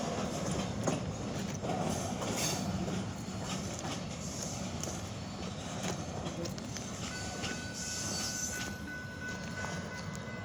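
Freight train rolling past, its wheels clicking over the rail joints in a steady rumble. A thin, steady high whine joins in about seven seconds in.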